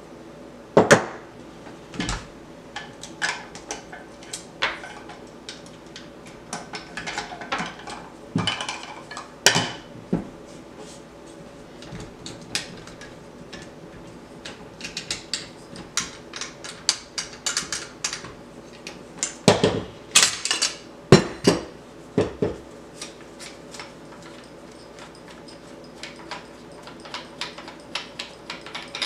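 Metal parts of a Nemesis Arms ANSR bolt-action rifle clicking, knocking and clanking as it is stripped by hand for a caliber change, with parts taken off and set down on the table. The sharp knocks are scattered throughout, and the loudest cluster comes about twenty seconds in.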